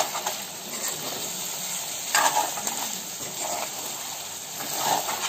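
Chicken feet and skin frying in a spicy masala in a metal kadai, sizzling steadily as a spatula stirs and scrapes through them, with a few louder scraping strokes.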